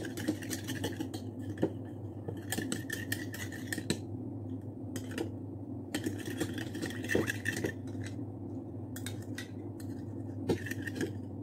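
Plastic spoon stirring a wet aloe vera gel mixture in a small plastic bowl, tapping and scraping against the bowl in several spells of quick clicks, over a steady low hum.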